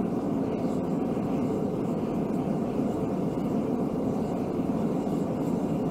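Mr. Volcano propane gas forge burner running steadily at high gas pressure, about 20 PSI, a lot louder than at low pressure as the forge heats toward 2400 °F.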